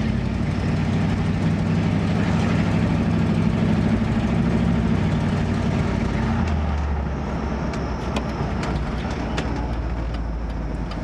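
1967 Buick Riviera's V8 engine running on the road, heard from inside the cabin. About six and a half seconds in the engine note drops and eases off, and scattered sharp clicks follow.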